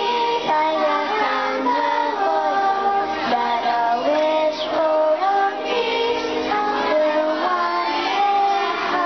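A large group of children singing a song together.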